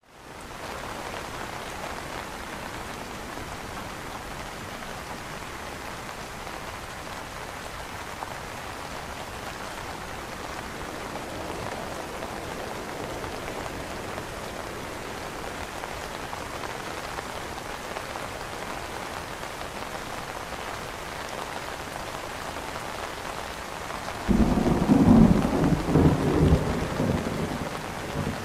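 Steady rain falling on an umbrella canopy, fading in over the first second. About 24 seconds in, a loud low rumble of thunder starts suddenly and rolls on for about four seconds, the loudest sound here.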